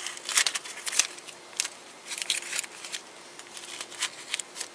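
Duct tape crinkling and rustling as it is wrapped and pressed around an electrical cable connector, in irregular crackles and small ticks.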